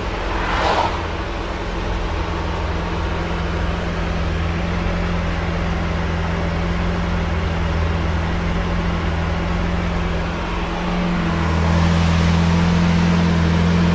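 Lamborghini Aventador LP700-4's V12 engine running at a steady engine speed, with a brief rushing noise just under a second in. About eleven seconds in, the engine note gets louder and holds there.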